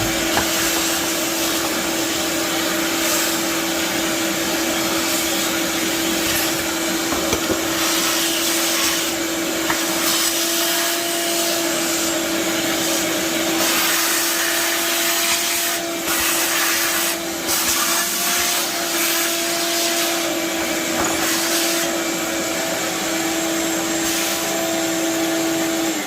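Ridgid 4-gallon, 5-horsepower wet/dry shop vacuum running steadily, its motor giving a constant hum over a rush of air as it sucks up drilled-MDF dust and chips.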